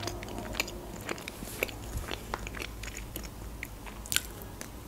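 Close-miked chewing of a Kinder Delice chocolate-coated sponge cake: scattered wet mouth clicks and smacks, with a sharper click about four seconds in.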